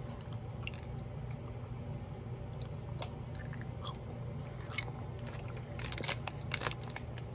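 Close mouth sounds of a person chewing soft Fruit Stripe gummy candy: scattered wet clicks over a steady low hum, with a cluster of louder clicks about six seconds in.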